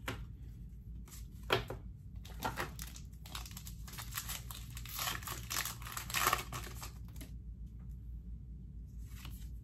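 Plastic foil Pokémon booster pack wrapper crinkling and tearing as it is opened by hand, in irregular crackles that are loudest in the middle and die down near the end.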